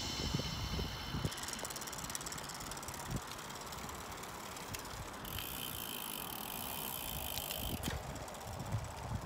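Recumbent trike rolling along a paved path: steady tyre and road noise with irregular low wind buffeting on the microphone. A faint steady whine joins in for a couple of seconds past the middle.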